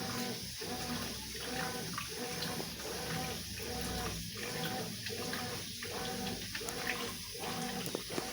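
Consul 12 kg top-loading washing machine agitating a blanket in the rinse cycle: the motor hums in short strokes that switch direction about every 0.8 s, with water sloshing in the tub.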